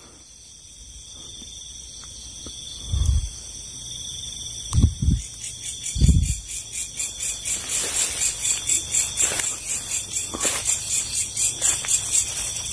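Night insects, crickets, chirping steadily; from about halfway it turns into a rapid pulsing, about four chirps a second. A few short low thuds come between about three and six seconds in.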